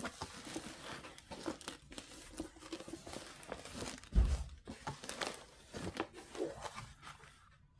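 Crinkling and rustling as a large rolled diamond painting canvas and its paper backing are handled and rolled by hand, with a dull thump about four seconds in.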